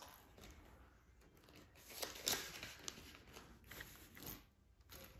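Soft rustling of paper banknotes being handled, with a few light clicks and taps around the middle.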